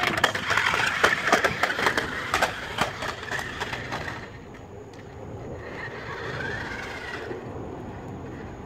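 FastLane RC stunt car tumbling and driving down concrete steps: a rapid run of plastic clatters and knocks over its small electric motor's whine for about four seconds, then quieter as it drives on along the pavement with a faint whine.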